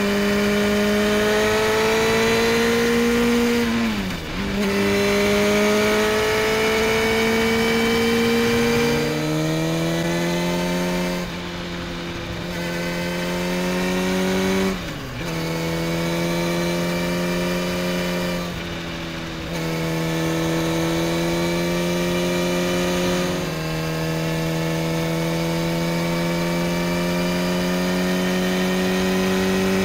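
Sport motorcycle engine heard from an onboard camera, pulling steadily along the road with its pitch slowly climbing. It dips sharply twice, about four seconds in and again about fifteen seconds in, as the throttle closes for a moment, with wind rush over the top.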